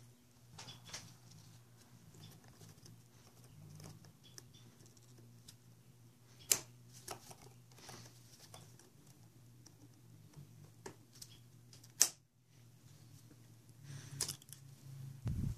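Scattered small clicks and taps of hand tools and metal parts being worked on a motorcycle's handlebar clutch master cylinder, with two sharper clicks about six and twelve seconds in and snap-ring pliers at the piston bore near the end. A steady low hum runs underneath.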